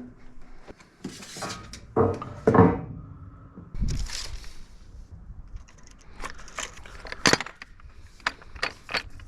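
Irregular metallic clinks, clanks and knocks of plumbing tools and metal pipe fittings being handled, the loudest clank ringing briefly about two seconds in.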